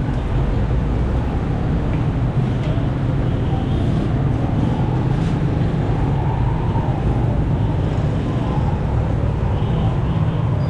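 Steady low rumble with a hiss over it from a jalebi frying station, where coiled batter fries in a wide pan of hot oil over a burner, with a few light ticks of utensils.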